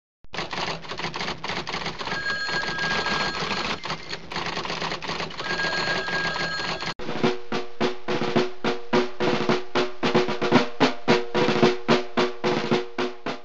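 Snare drumming: a rapid, dense roll for about seven seconds, then separate drum strokes in a steady rhythm of about three a second.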